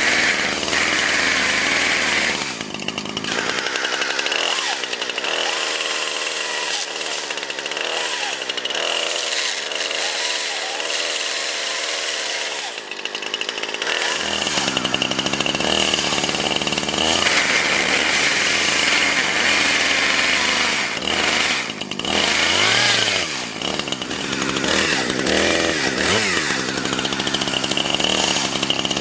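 Gas chainsaw running at high revs while cutting into a Samsung Galaxy S4 smartphone clamped in a vise. The engine drops off briefly a few times and revs up and down near the end.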